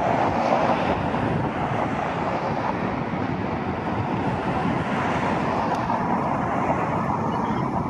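Steady outdoor rushing noise of road traffic, with wind on the microphone.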